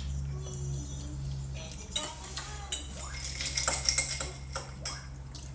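Knives and forks clinking and scraping on dinner plates, with a cluster of sharp clinks about two to four seconds in, over a steady low hum.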